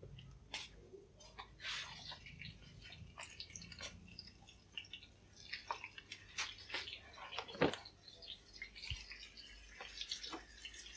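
Faint scattered clicks and taps from hands handling straw mushrooms in a plastic basket, with a sharper click about seven and a half seconds in.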